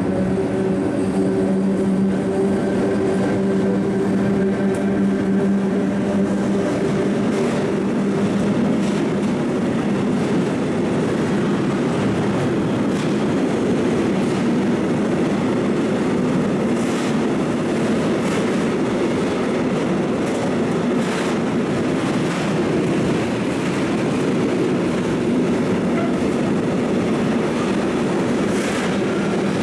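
Freight train hauled by a PKP ET41 double electric locomotive passing close by. A steady hum comes from the locomotive for about the first seven seconds. Then loaded-sounding open freight wagons roll past with a continuous rumble and scattered wheel clacks over rail joints.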